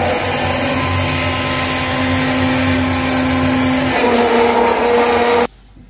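Electric blender running as lassi is blended, its motor hum shifting in pitch a couple of times as the load changes, then switched off abruptly near the end.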